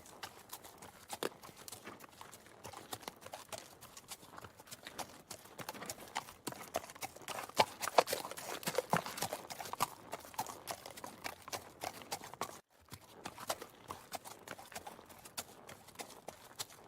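Horse hooves clip-clopping on hard ground in an irregular run of sharp knocks, louder in the middle, with a brief break about three-quarters of the way through.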